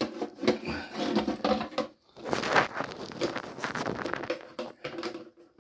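Plastic toilet flush syphon scraping, clicking and knocking against the cistern as it is worked loose where it has got caught. There are two busy stretches of scraping, with a short gap about two seconds in, then a few quieter knocks.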